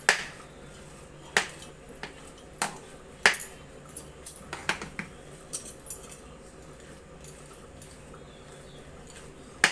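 Metal spoon clinking and scraping against the inside of an aluminium pressure cooker while mashing freshly cooked rice and dal. The clinks come irregularly, about one a second at first, and thin out in the second half.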